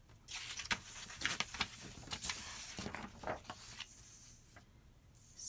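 Paper or card handling: irregular soft rustling with light scratches and taps, dying away about four seconds in.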